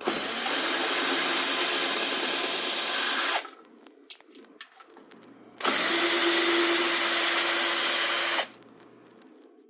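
Electric drill with an 8 mm socket running in two bursts of about three seconds each, backing out the screws that hold a coffee machine's grinder, with small clicks between the bursts.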